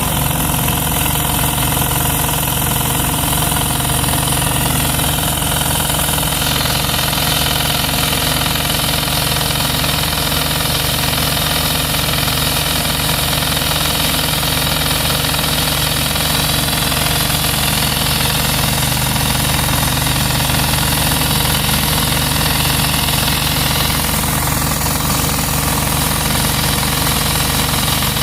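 Heated pressure washer running steadily under its engine's hum while water is sprayed onto concrete, with a high hiss that strengthens about six seconds in and eases near the end.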